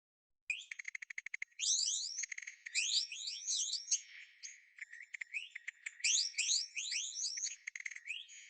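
Bird song: about half a second in, a fast run of short dry ticks, then quick high rising chirps, many to a second, in bursts with short breaks between them.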